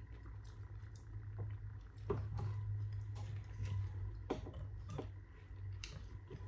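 A few scattered light clicks and taps over a steady low hum.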